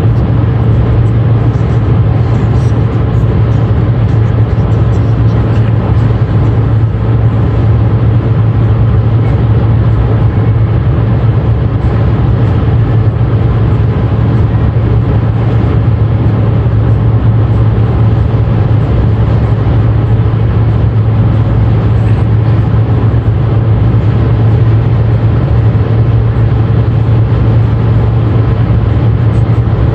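Car cabin noise at motorway speed: a steady low drone from the engine and the tyres on the road, unchanging throughout.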